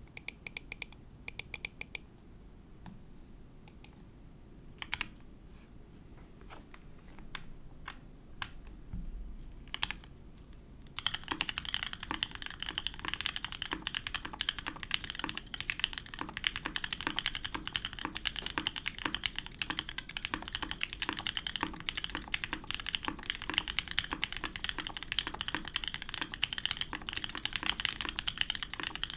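Mode Sonnet (2022) mechanical keyboard with lubed Cherry Nixie linear switches on an FR4 plate and GMK Honor keycaps being typed on: a few scattered single keypresses at first, then fast continuous typing from about eleven seconds in. The owner finds the sound a little flat and thin.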